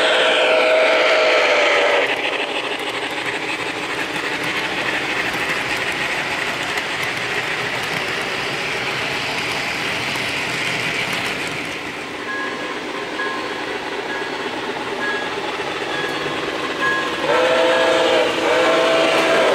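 Model of Nickel Plate Road 765 steam locomotive sounding a chime whistle, one long blast that stops about two seconds in. Then the steady running rush of the model train and its passenger cars on the track. The whistle sounds again in several short blasts near the end.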